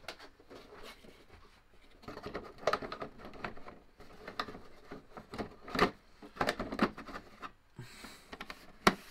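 Plastic body shell of a Traxxas TRX-6 6x6 RC crawler being handled and pressed down onto its chassis: irregular rustling, scraping and clicking, with a sharp knock about six seconds in and another near the end.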